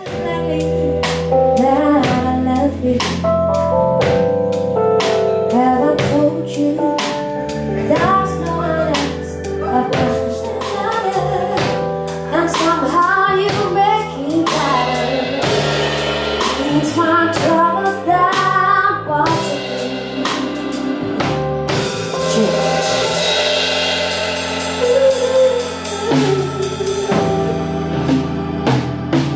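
Band music: a singer over drum kit and bass guitar, with a steady beat and cymbals washing in the last third.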